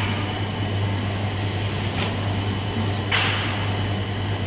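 Automatic onde-forming machine running with a steady motor hum, a short click about two seconds in, and a brief hiss just after three seconds.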